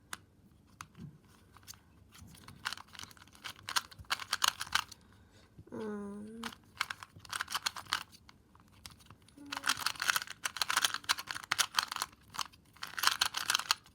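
2x2 speed cube being turned rapidly during a timed solve: fast plastic clicking and clattering of the layers in several quick spurts with short pauses between them. A brief vocal sound is heard about six seconds in.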